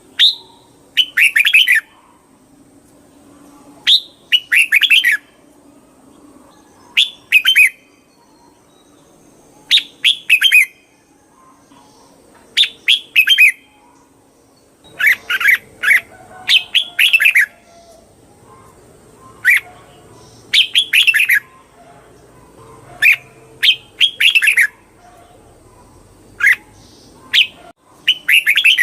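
Red-whiskered bulbul singing loud, short phrases of a few quick, liquid notes, repeated every couple of seconds.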